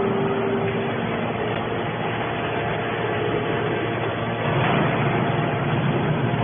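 Hydraulic can baler running: a steady machine noise with a faint hum from its motor and hydraulic pump, growing a little louder near the end.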